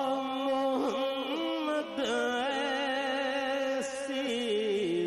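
A man singing a naat, drawing out long held notes with wavering, ornamented turns in the melody.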